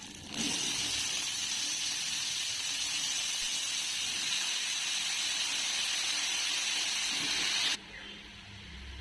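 Steady hissing that starts suddenly just after the start and cuts off suddenly near the end.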